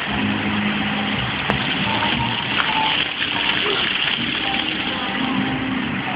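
Splash-pad fountain jets spraying and splattering onto paving, a steady hiss of water.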